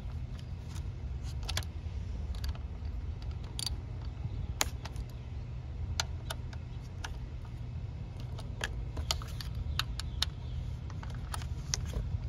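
Light, irregular clicks and taps of hand tools and engine parts being handled, over a steady low rumble.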